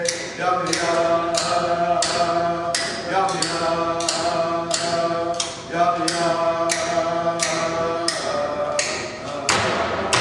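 Inupiaq frame drum struck in a steady beat, about two strokes a second, under a chanted song with long held notes.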